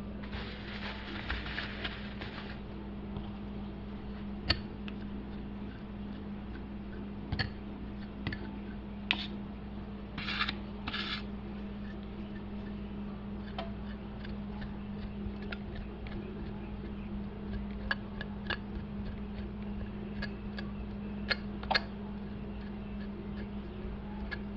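A knife scraping along raw pork chops in a few short scratchy strokes, with scattered clicks and taps of handling on the counter, over a steady low hum.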